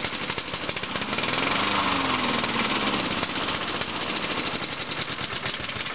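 Craftsman walk-behind lawn mower's single-cylinder engine running with rapid, regular firing pulses, its fuel valve shut so that it is burning off the last of the gas in the carburettor before winter storage.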